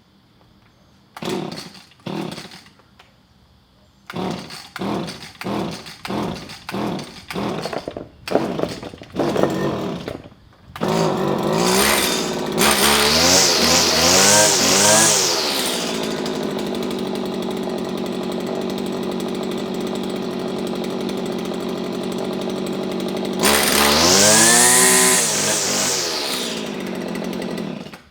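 Small petrol engine of a garden power tool being pull-started on its newly fitted spark plug: two pulls on the recoil starter cord, then a quick run of about ten pulls. It catches about eleven seconds in, revs several times and settles to a steady idle. It revs up once more and then cuts off near the end.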